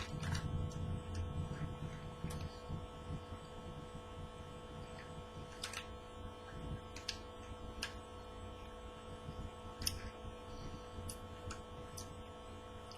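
Steady electrical hum with quiet mouth sounds of someone chewing small dried fruit pieces: a low rumble for the first couple of seconds, then faint scattered clicks.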